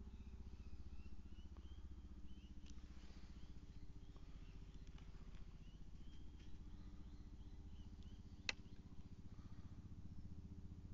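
Quiet night ambience: a steady low hum under faint high chirps that repeat every half second or so, with one sharp click about three-quarters of the way through.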